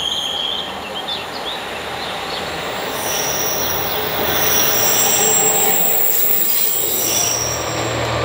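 A Class 143 Pacer diesel railbus running into the station, its wheels squealing in high steady tones from about three seconds in, over the rumble of the train.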